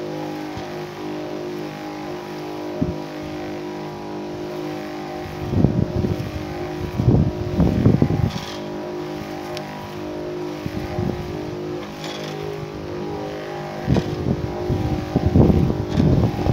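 Electric knapsack sprayer's pump motor running with a steady hum. Bursts of low rumble break in about five to eight seconds in and again near the end.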